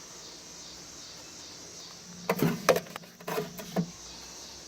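A quick run of sharp clicks and knocks about halfway through, from parts and wiring being handled during work inside the pellet grill, over a steady faint high hiss.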